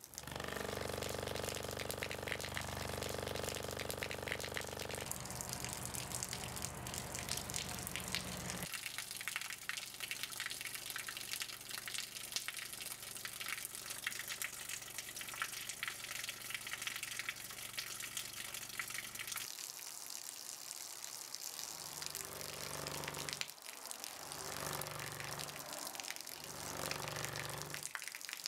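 A thin stream of water pouring from a hose and splattering, with a low, steady hum from the speaker that shakes the hose at a set tone. The hum changes pitch twice in the first nine seconds, then fades. Near the end it swells and fades in pulses every second or two as the tone is changed.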